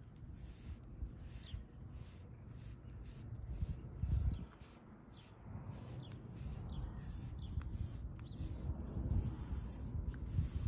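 A metal coil-spring shedding comb raking repeatedly through a cat's fur: a series of short, high scratchy strokes, one about every half second.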